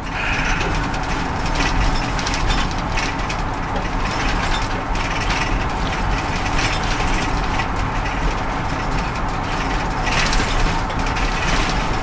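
Road and engine noise inside a moving vehicle's cabin: a steady rumble with constant small rattles and clicks.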